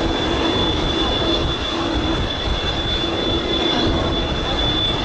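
Boeing 787-9 jet engines at taxi power: a steady high whine over a low rumble as the airliner taxis.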